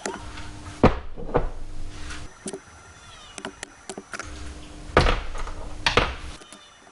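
Knocks and clatter of motorcycle parts and tools being handled and set down during reassembly, with sharp knocks about a second in and again around five and six seconds.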